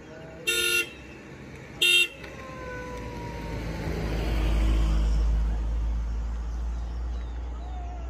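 A vehicle horn toots twice, about a second and a half apart, the second shorter, then a motor vehicle comes up and passes on the road, its engine rumble swelling to a peak about halfway through and fading.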